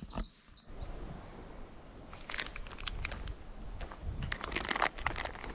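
Hiking footsteps crunching on the trail, growing louder after about two seconds, with a brief bird chirp right at the start.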